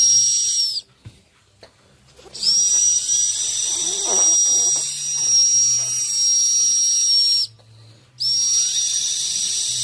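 Turbo whistle: a high, steady whistle with hiss, sounding in long stretches. The first cuts off about a second in, the second comes in after a short gap and holds for about five seconds, and the third starts again near the end.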